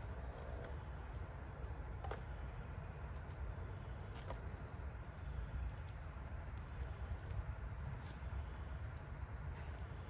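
Dry firewood sticks knocking together a few times as they are laid out for a campfire, over a steady low wind rumble on the microphone and faint short bird chirps.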